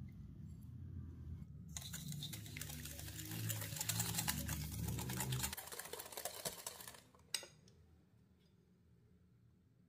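Hand wire whisk beating egg and sugar in a glass bowl: a fast, even run of clicks and scrapes of the wires against the glass, starting about two seconds in and stopping about seven seconds in, with one sharp click just after. A low rumble runs underneath until about five and a half seconds in.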